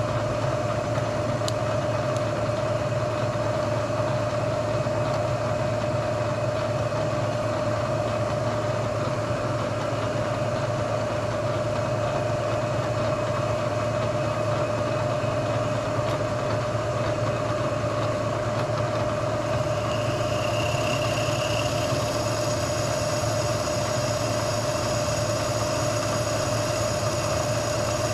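Steady hum of a running shop machine motor, even and unchanging, with a brighter hiss joining about two-thirds of the way through.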